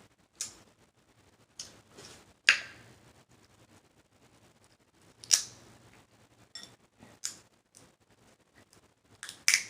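Snow crab leg shells being cracked and snapped by hand: a string of sharp, separate cracks and clicks, the loudest about two and a half and five seconds in, with a quick cluster near the end.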